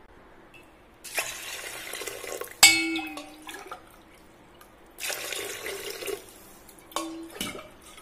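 Water poured into a metal cooking pot over rice, shallots and garlic, in two pours, each ending with a sharp metallic clank that rings briefly.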